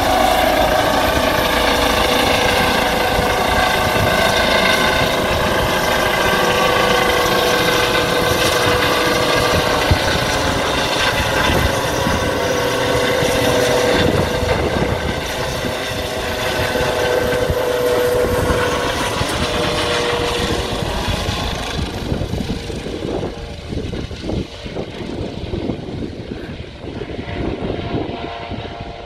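Police helicopter flying away after lifting off: a steady turbine whine over rotor noise, loud at first and fading over the last several seconds as it moves off into the distance.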